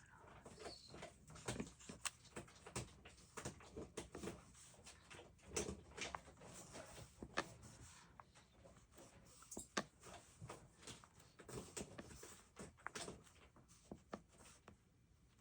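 Soft, irregular taps, clicks and rustles of paper and stationery being handled on a desk, with no steady rhythm.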